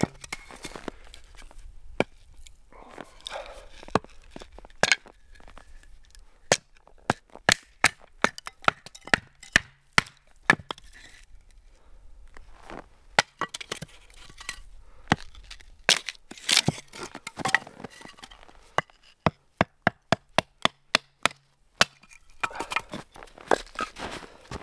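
Axe splitting firewood into kindling on a chopping block: a long run of sharp wooden cracks and knocks, some in quick clusters, with short pauses between.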